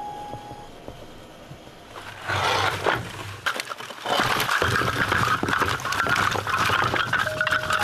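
A mesh bag of split firewood rustling and scraping as it is handled and set down, with pieces of wood knocking and clattering together, starting about two seconds in.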